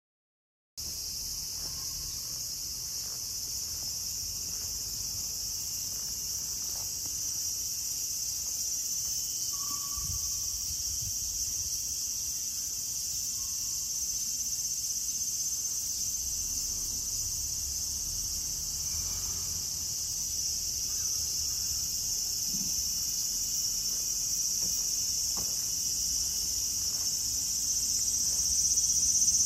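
A dense chorus of cicadas singing steadily, starting about a second in and growing a little louder near the end. A faint, brief tone sounds beneath it about ten seconds in.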